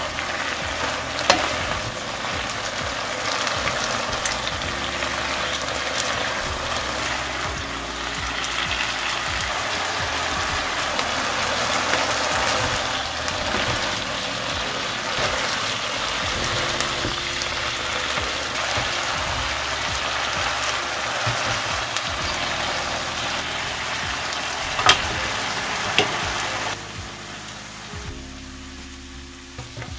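Food frying in a hot pan, a steady sizzle with a few sharp clicks. The sizzle falls away near the end.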